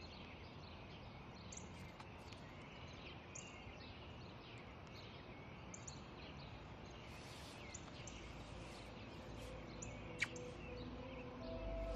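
Quiet outdoor ambience with small birds chirping here and there, one sharper chirp about ten seconds in. Soft music begins to fade in near the end.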